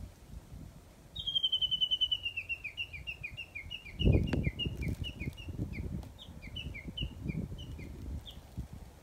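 A songbird singing, starting about a second in: a fast trill of short notes that slides slightly lower, then a run of quick paired chirps for several seconds. Low rumbling noise on the microphone underneath, with a louder bump about four seconds in.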